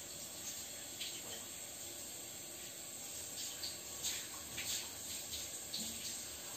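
Handheld shower head spraying water onto a wet boxer dog's coat: a steady hiss with irregular splashes.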